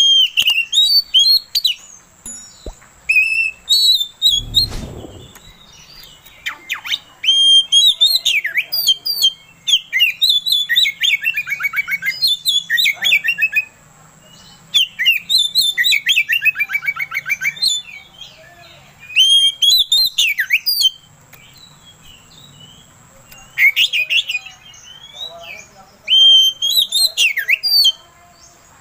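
Male oriental magpie-robin singing: loud phrases of sweeping whistles, chirps and rapid down-slurred trills, broken by short pauses, the longest a couple of seconds past the middle.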